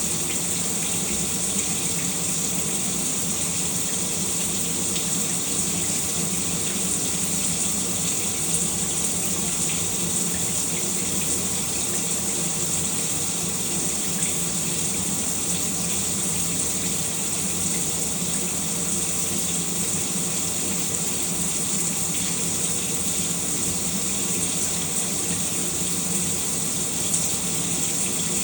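Shower water running steadily, a constant even hiss of spray falling.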